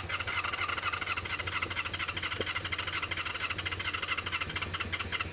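Electric starter cranking a Honda VFR400 NC24's V4 engine in a start attempt on freshly rebuilt carburettors, a steady fast pulsing whirr.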